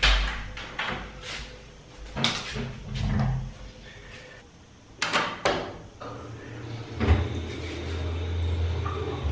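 Interior wooden door with a lever handle being opened and shut, a run of sharp clicks and knocks from the latch and door. About seven seconds in, a steady low hum with a light hiss starts and carries on.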